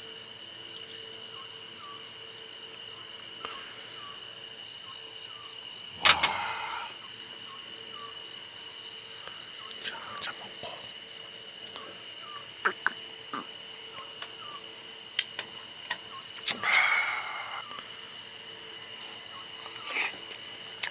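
Crickets chirring steadily, heard as a continuous high ringing, with scattered sharp clicks and knocks on top, the loudest about six seconds in.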